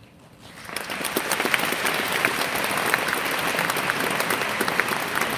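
A large audience breaks into applause about half a second in, building within a second to steady, loud clapping from many hands.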